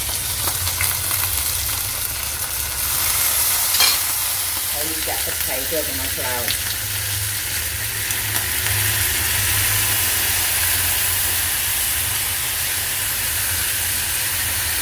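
Fish steaks frying in hot oil in a nonstick pan: a steady sizzle that grows louder from about three seconds in, with a single sharp clack near four seconds.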